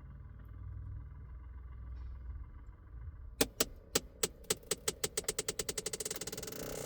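Switched-off Dodge Scat Pack making a strange clicking from what the owner suspects is the heater box. About three seconds in, sharp clicks start at a few per second and speed up into a rapid buzz that turns into a steady tone near the end.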